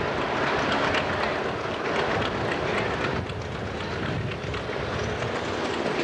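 Super stock pulling tractor's engine running steadily at the end of the track.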